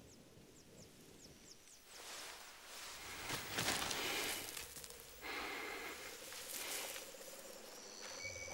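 Hands rustling through grass and scraping soil in a few short bursts, with faint high chirps near the start.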